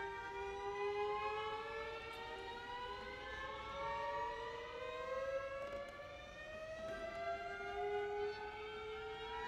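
String quartet playing slow, overlapping upward glissandi: several sustained notes slide gradually higher together, and a fresh low note begins its climb about seven seconds in.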